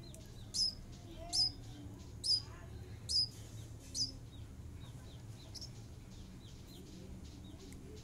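Nestling songbirds begging while being fed. Sharp high chirps come about once a second through the first four seconds, then fade, with softer high cheeps throughout.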